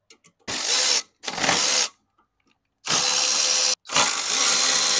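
Cordless power ratchet spinning a socket on an extension to back out a bolt under the hood, in four runs: two short ones, then a longer one, then a long run to the end.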